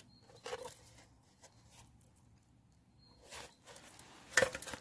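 Handling noise from a pellet-riddled spray can turned over in the hand: short rustles and scuffs, with a louder, sharper scuff near the end.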